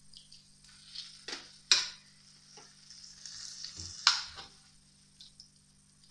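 Green beans and bacon sizzling in a frying pan while being stirred, with a few sharp knocks of a spoon against the pan, the loudest about two seconds in and again about four seconds in.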